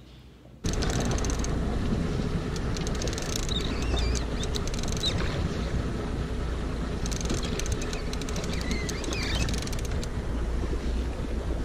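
Wind buffeting an action camera's microphone over the steady running of a fishing boat at sea, starting abruptly about a second in. Two bursts of rapid clicking sound through it, in the middle and toward the end.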